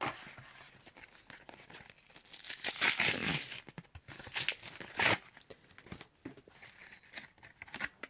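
Foil Pokémon booster pack wrapper crinkling and being torn open, the loudest tearing from about two and a half to three and a half seconds in, with a short sharp rip about five seconds in.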